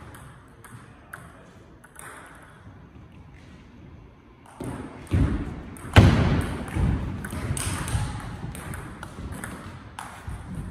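Table tennis ball clicking off the paddles and the table in a quick back-and-forth. From about halfway in there are loud, heavy thuds of feet on the floor as a player moves and lunges.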